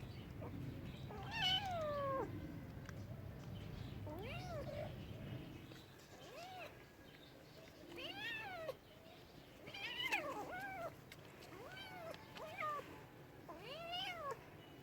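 Domestic cat meowing repeatedly, about nine meows: a longer falling one near the start, then shorter meows that rise and fall in pitch.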